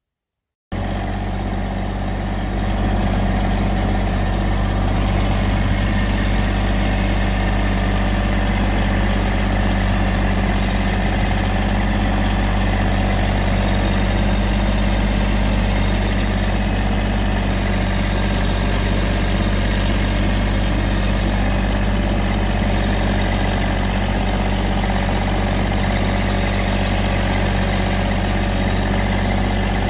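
Massey Ferguson GC1705 subcompact tractor's three-cylinder diesel engine running steadily, heard from the driver's seat, picking up slightly in the first few seconds.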